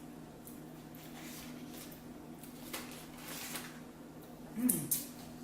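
Faint soft squishing and rustling of instant-noodle sauce packets being squeezed out and handled, over a steady low hum. Near the end come two short sharp clicks and a brief falling vocal 'mm'.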